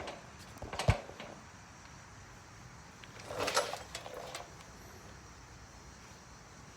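Handling sounds: a sharp click about a second in, then a short rustling scrape around three and a half seconds in, with a smaller one just after.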